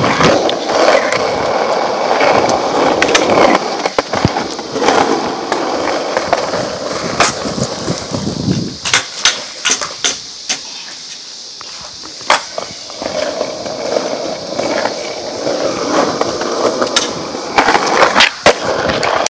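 Stunt scooter's hard wheels rolling over rough asphalt and concrete, with sharp clacks as the deck and wheels land and strike the pavement during tricks. The rolling eases for a few seconds in the middle, marked by a few separate loud clacks, then picks up again.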